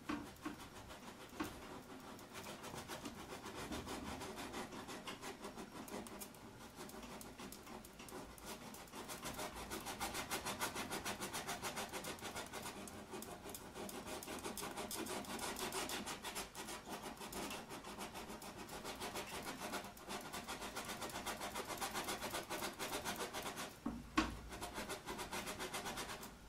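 Paintbrush scrubbing paint onto stretched canvas in rapid short strokes, a continuous rubbing that swells and fades. A sharp knock comes about a second in and another near the end.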